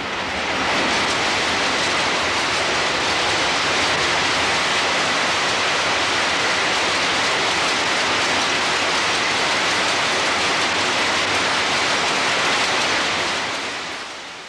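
Steady din of workshop machinery: an even rushing noise with a faint high whine in it. It comes up within the first second and fades out near the end.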